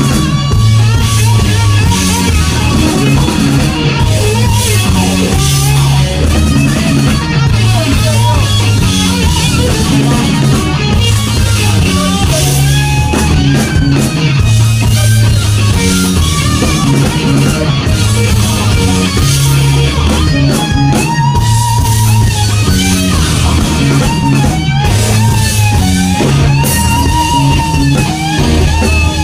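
Rock band playing: an electric guitar plays a lead of long, sustained notes that bend in pitch, over bass and drums.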